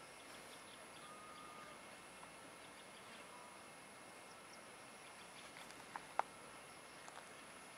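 Quiet outdoor ambience: a faint steady high-pitched tone over a soft hiss, with scattered faint bird whistles. Two short, sharp chirps or clicks about six seconds in are the loudest sounds.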